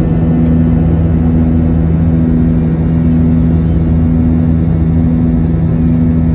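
Steady jet engine drone heard from inside the cabin of an Airbus A320-family airliner: a loud, even rumble with a constant low hum made of two steady tones.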